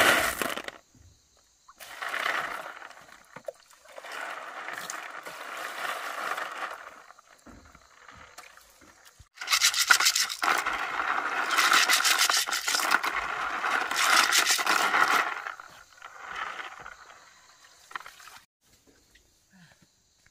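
Scraping in several bursts, the longest about six seconds in the middle of the stretch.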